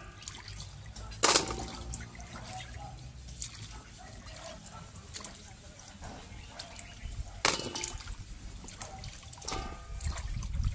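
Hands swishing and sloshing small bilimbi (kamias) fruits in a basin of water, with small splashes and clicks. Two louder sudden sounds stand out, about a second in and again about seven and a half seconds in.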